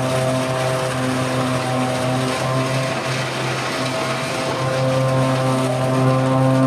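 Tractor engine and front-mounted chipping head running steadily under load as it cuts young pine trees and blows the chips into a trailer: a steady, humming machine drone.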